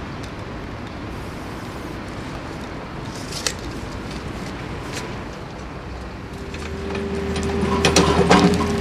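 Steady background of street traffic with a couple of sharp clicks. About two-thirds of the way in, a mini excavator's engine and hydraulics join with a low hum and a steady whine, and a cluster of clanks and knocks near the end as the machine works.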